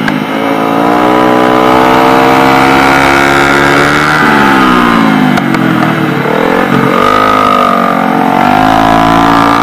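Motorcycle engine revving hard up close from the bike's own onboard camera. Its pitch climbs, falls steeply about four seconds in as the throttle is rolled off, dips again a couple of seconds later, then climbs once more.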